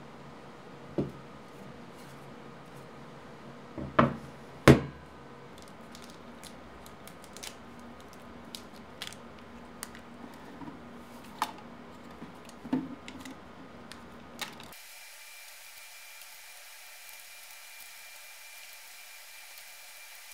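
A few knocks and light clicks in a small room, the loudest two close together about four seconds in, followed by scattered softer ticks. About three-quarters of the way through, the low room sound cuts off and a steady hiss with a faint high tone takes over.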